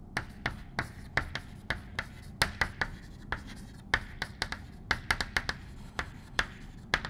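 Chalk tapping and scraping on a blackboard as words are written by hand: a quick, irregular series of sharp clicks.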